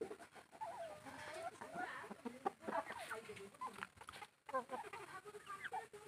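Aseel chickens clucking, a run of short calls that breaks off briefly a little past four seconds in and then resumes.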